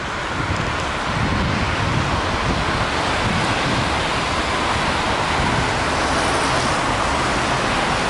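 Strong wind buffeting the microphone over a steady hiss of road traffic. The gusty low rumble is strongest in the first few seconds, then the noise evens out.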